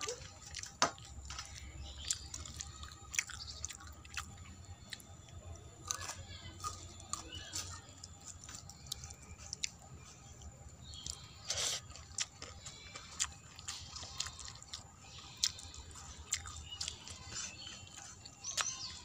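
Close-up eating sounds: chewing and wet mouth clicks of someone eating rice and dal by hand, with fingers gathering the rice on a steel plate. The clicks come at irregular moments.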